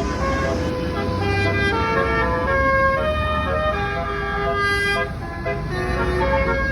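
Basuri multi-tone bus horn playing a melody: a run of held horn notes stepping from pitch to pitch, over a low rumble.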